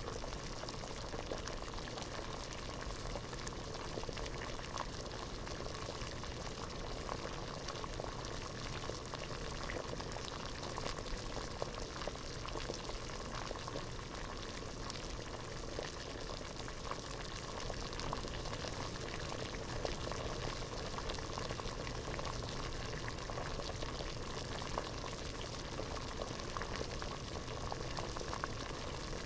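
Water at a rolling boil in a pot, bubbling steadily with many small pops and crackles.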